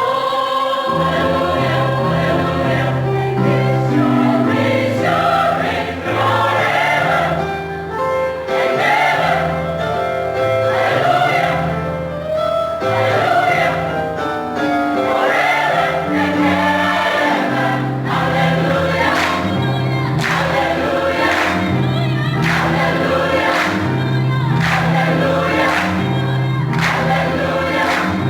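Church choir singing a sacred piece in several parts, with a low part moving in steps under the sustained upper voices.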